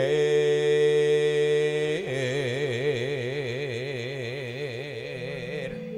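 A man's solo sung voice in Javanese tembang style, without drums: one long steady note, then a lower note held with a slow, wide vibrato. About 5.7 s in the voice stops and a steady instrumental tone holds on.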